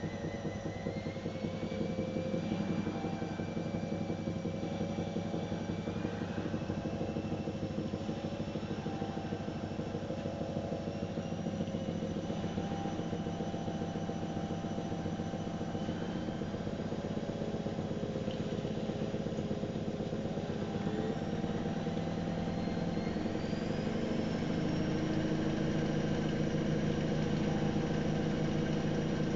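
AEG Öko-Lavamat 693 washing machine running with a steady motor whine that climbs in pitch in several steps, the drum speeding up as it goes into a spin.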